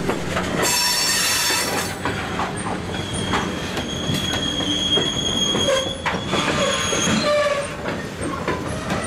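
Covered hopper cars rolling around a curve, their wheel flanges squealing against the rail in high, shifting whistles, loudest about a second in, over a steady rolling rumble with scattered clicks from the wheels.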